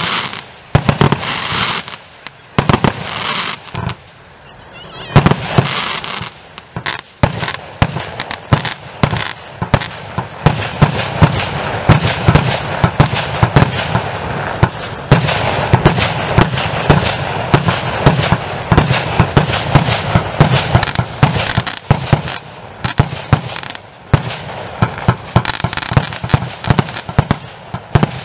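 A 240-shot fireworks compound box firing in rapid succession: a dense string of sharp launches and bangs, with a couple of short lulls in the first few seconds.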